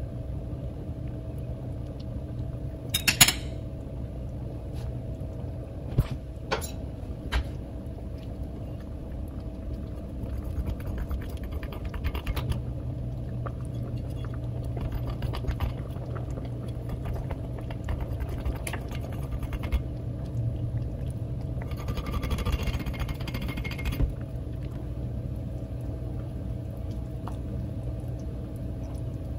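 Chicken noodle soup simmering in a metal pot on an electric stove, a steady low bubbling, with a few sharp clinks of a metal fork against the pot and a short noisier stretch of the fork working in the pot about 22 seconds in.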